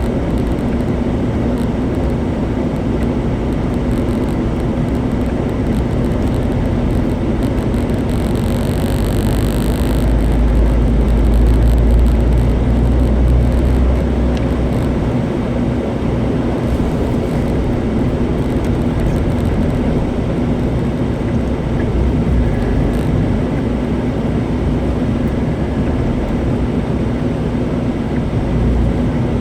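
Car driving steadily through town, its engine and tyre noise heard from inside the cabin as a continuous drone with a steady low hum. A brief hiss comes about eight seconds in, and the low rumble grows louder for a few seconds after it.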